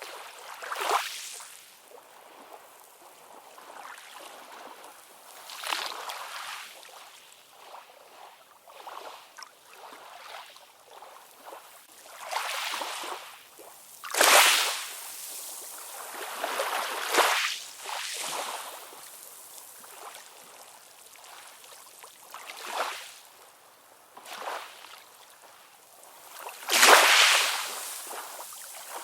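Ocean waves washing in and breaking in irregular surges, each swelling up and falling away over a second or two, with the strongest surges about halfway through and near the end.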